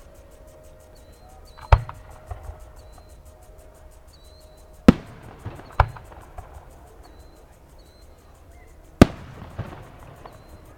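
Aerial firework shells bursting in the sky: four sharp bangs, two of them close together in the middle, each trailed by fainter pops and echoes.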